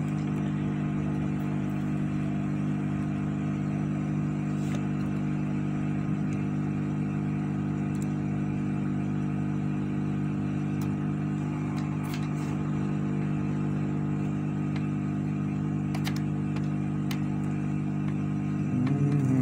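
Steady, even hum of a small fan motor on the repair bench, with a few faint ticks from tools on the circuit board.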